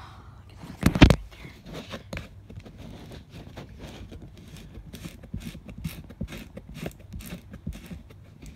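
A single loud thump about a second in, followed by scattered light scraping and clicking.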